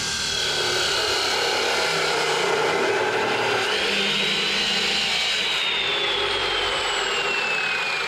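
Power tool cutting steel tubing: a loud, steady grinding noise with a high whine that slides down and back up in pitch.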